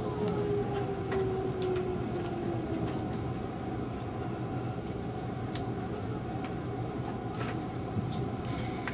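373 series electric train's VVVF inverter whine falling in pitch as the train brakes along a station platform, fading out about three seconds in. The rumble of the slowing train carries on, with a few light clicks and a hiss near the end.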